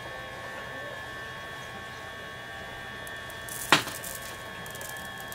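Eheim Everyday automatic fish feeder's small electric motor turning its food drum through a feeding rotation, a steady whine. A sharp click about three and a half seconds in, around when the pellets drop out onto the table.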